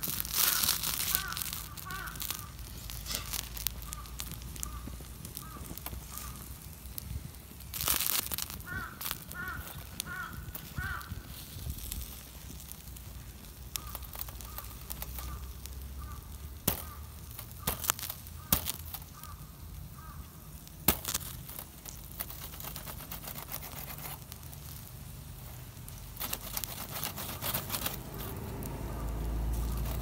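Wood fire crackling under a wire grill, with scattered sharp clicks and pops. Crows caw faintly in several short series of repeated calls.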